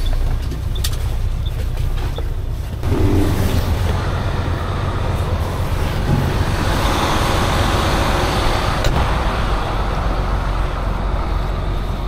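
Tow truck engine running with a steady low rumble; about three seconds in it gets louder and a broad hiss joins it.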